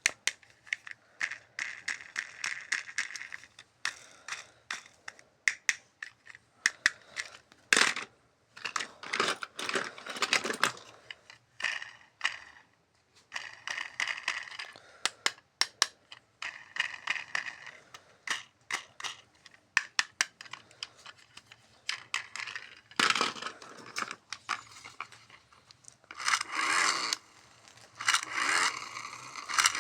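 Toy packaging being opened and handled: plastic and cardboard crinkling, tearing and scraping, with many sharp clicks of plastic parts.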